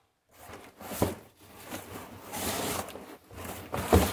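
Cardboard box being handled and opened: cardboard scraping and rustling, with a sharp knock about a second in and another near the end.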